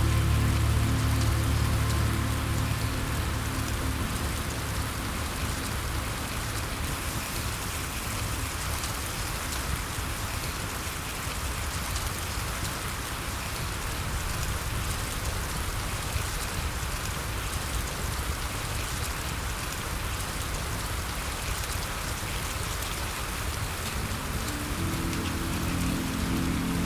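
Steady rain, an even hiss of falling drops. A soft, low music pad fades out over the first couple of seconds and comes back in near the end.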